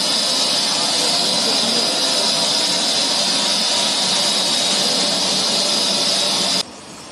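Steam locomotive BR Standard Class 7 'Britannia' No. 70013 venting steam around its cylinders: a loud, steady high-pitched hiss with no chuffing beat. It cuts off suddenly near the end.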